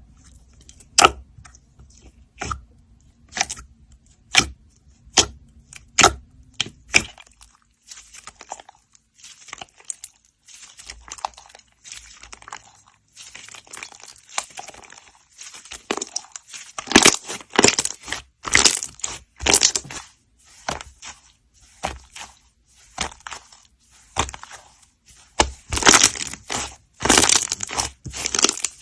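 Slime being squished by hand, with sharp pops and crackles: single pops about once a second at first, then denser runs of crackling, loudest near the end.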